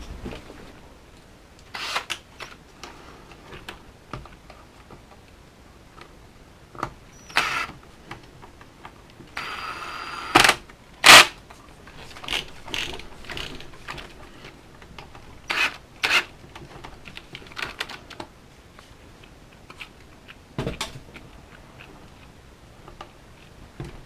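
Small parts and tools handled on a workbench while an RC truck is worked on: scattered clicks and knocks, with a brief buzz about nine and a half seconds in followed by the two loudest knocks.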